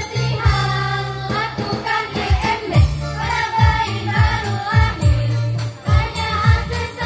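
A women's choir singing together to backing music, with a steady bass line and a regular drum beat under the voices.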